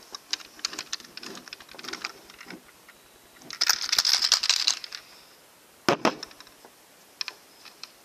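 Plastic LEGO bricks clicking and rattling as hands work a homemade LEGO candy machine's coin mechanism, with a denser scraping rattle about four seconds in and a single sharp knock about six seconds in.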